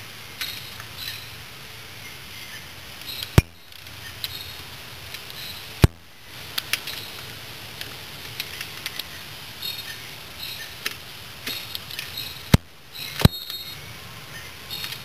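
Small metal clicks and clinks of a wrench on the cam sprocket bolts of a Yamaha Badger YFM80 engine, in irregular bursts, with four sharp knocks standing out.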